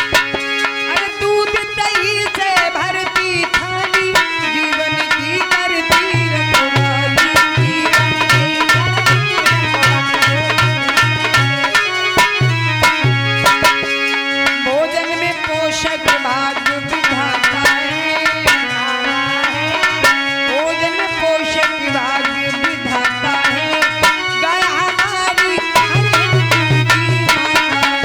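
Instrumental interlude of a Hindi devotional folk song: a hand drum plays a quick, steady rhythm under a gliding melody line.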